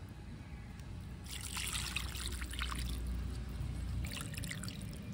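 Water trickling into a small clay pot of rice and vegetables, from about a second in to about three seconds, then a few brief splashes about four seconds in, over a low rumble.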